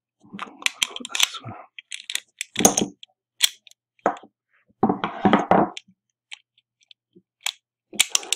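Small metal parts of a Yale three-lever mortice sashlock clicking and scraping under the fingers as a lever is handled and fitted into the open lock case. Irregular clicks and short rustling handling noises, with a louder spell about two and a half seconds in and another around the middle.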